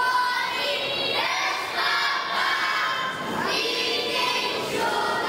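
A group of children singing together.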